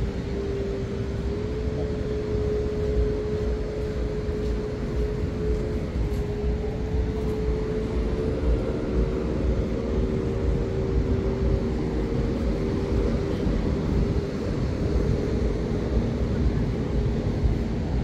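Steady engine drone holding one pitch, with a second, slightly higher engine tone joining about eight seconds in, over a low rushing wash of noise.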